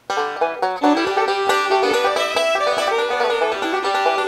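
Background music: a plucked-string tune that cuts in suddenly.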